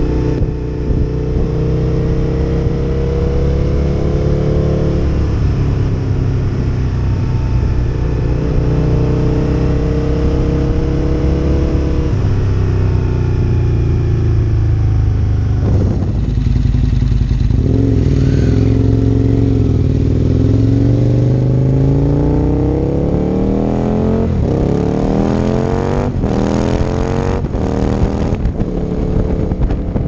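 Aprilia RSV Mille's 998 cc V-twin engine under way, rising in pitch as it accelerates and dropping back at each gear change. In the second half it pulls hard through several quick upshifts in a row.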